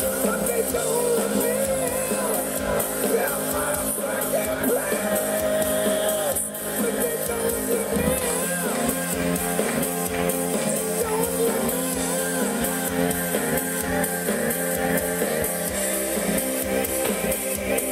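Music: a song with singing over instrumental backing, with a brief dip about six and a half seconds in.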